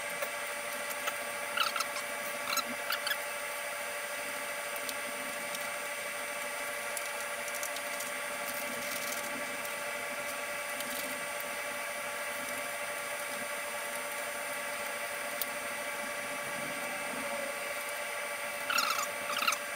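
A steady hum of several fixed tones, with a few light clicks and rattles of metal parts being handled as a motorcycle's rear luggage rack is fitted back on, a couple about two seconds in and a cluster near the end.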